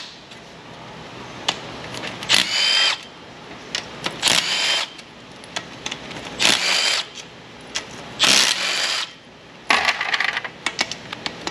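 Cordless power tool spinning out oil pan bolts on a Northstar V8 in about five short runs, each under a second, with a steady whine. Light metallic clicks fall between the runs.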